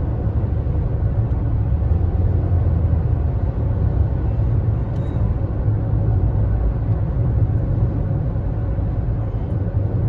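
Steady low rumble of a car driving along a highway, heard from inside the cabin.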